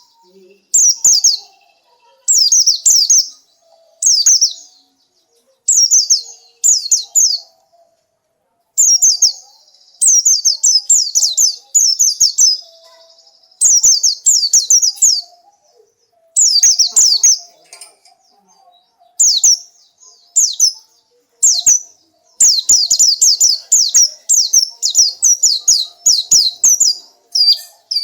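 Oriental white-eye (pleci) singing: bursts of quick, high, falling chirps strung into phrases of about one to two seconds, with short pauses between them.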